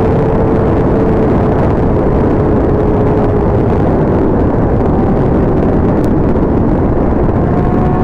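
Inline-four sport-bike engine running at a steady cruise under heavy wind rush, its pitch sinking slowly as the throttle eases.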